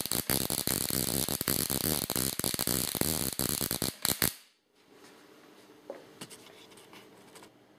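Ruhmkorff induction coil discharging across a spark gap between a flat metal disc and a brass ball: a loud, rapid crackling buzz of sparks that cuts off suddenly about four seconds in.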